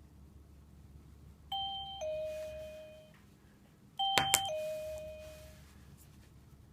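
REVEX X830 wireless door/window chime receiver sounding a two-note ding-dong, high then low, twice, about two and a half seconds apart: the alert that the transmitter's magnet sensor has been triggered. Two sharp clicks come just after the second chime begins.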